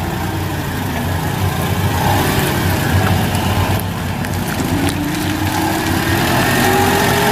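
Engine of a propane-powered Cat forklift running as it drives, steady, with a whine that rises in pitch over the last couple of seconds.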